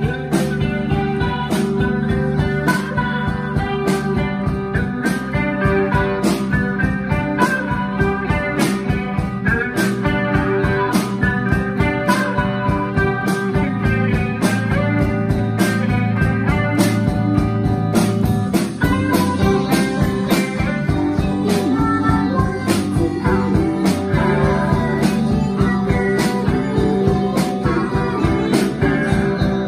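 A band playing live: electric guitars over bass, with a steady drum beat.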